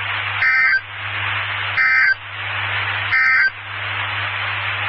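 NOAA Weather Radio SAME end-of-message data (the EAS "NNNN" code) sent three times as short warbling digital bursts about a second and a third apart, marking the end of the severe thunderstorm warning. Radio hiss and a low hum fill the gaps between the bursts.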